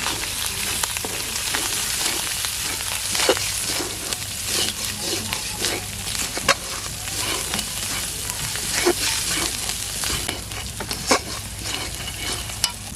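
Spices and onion sizzling in hot oil in a pan while being stirred, with a spatula scraping and knocking against the pan every second or so; the sizzle eases a little near the end.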